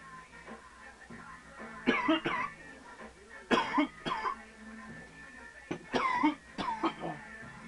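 A man coughing hard in three fits of two to four coughs each, with music from a TV or film playing quietly underneath.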